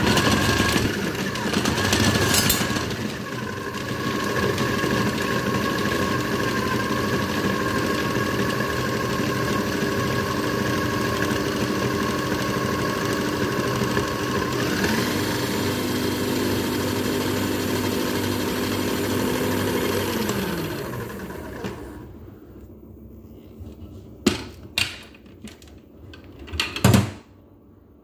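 KitchenAid food processor motor running with its blade chopping onion chunks: rough and loudest for the first few seconds as the pieces are struck, then a steady whir, with a step up in pitch about halfway through. It winds down about 21 seconds in, and a few sharp plastic knocks follow as the lid comes off.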